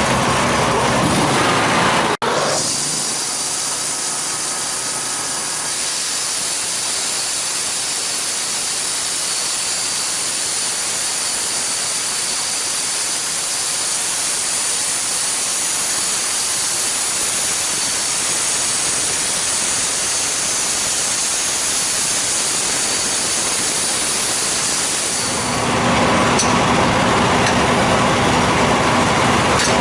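Homemade sawmill running and cutting through a log: a steady, hissing cutting noise over the machine's motor. The low motor sound is stronger at the start and again near the end.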